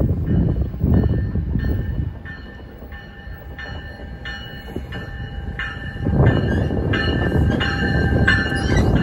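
NJ Transit MultiLevel cab car's bell ringing steadily, about three strikes every two seconds, as the train approaches along the platform. The low rumble of the train grows loud from about six seconds in.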